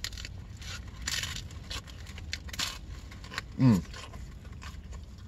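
Crunching bites and chewing of a nacho-cheese Doritos Locos taco's hard shell, a run of short crackles over the first three seconds. About three and a half seconds in, a short falling hum from the eater.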